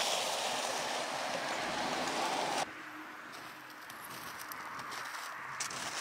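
Steady outdoor hiss of wind, which cuts off suddenly about two and a half seconds in, leaving quieter outdoor ambience with a few faint clicks.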